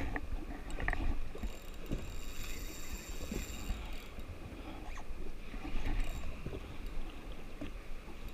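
Small waves lapping and slapping against a jet ski's hull, with the whir of a spinning fishing reel being wound in patches as a hooked fish is played.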